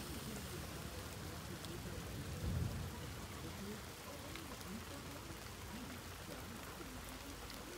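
Steady rain falling, with a short low thump about two and a half seconds in.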